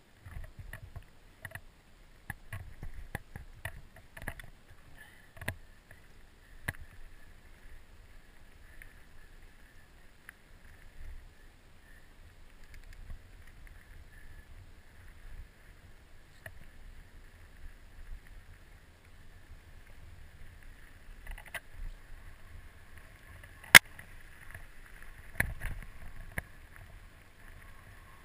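Mountain bike riding down a rocky dirt singletrack, heard from a camera on the rider: a steady low rumble of tyres and wind with scattered clicks and knocks of the bike over stones, and one sharp crack, the loudest sound, late on.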